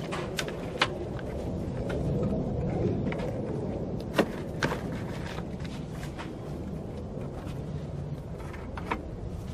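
Buckets of wet mud being tipped into a wheelbarrow: a few sharp knocks as a bucket strikes the wheelbarrow, the loudest about four seconds in, over a steady low rumble.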